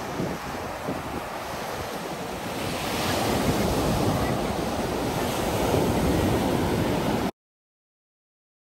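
Surf breaking and washing up a sandy beach, with wind on the microphone; the wash swells louder about three seconds in as a bigger wave breaks, then cuts off suddenly near the end.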